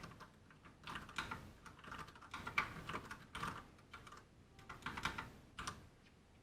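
Typing on a Ducky One 2 RGB full-size mechanical keyboard: quick runs of key clicks in short bursts with brief pauses, stopping near the end.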